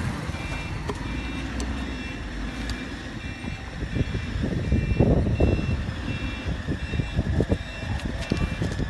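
Electronic beeper sounding short high beeps, about three every two seconds, like a vehicle's reversing alarm, over a low steady rumble. Irregular knocks come in during the second half.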